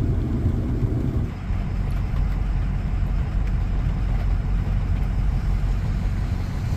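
Ford Power Stroke diesel pickup engine idling, heard from inside the cab as a steady low rumble. A fuller layer of the rumble drops away about a second in.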